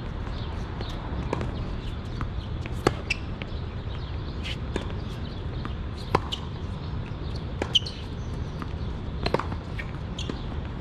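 Tennis balls struck by rackets and bouncing on the court: sharp, single hits every second or two, over a steady low background rumble.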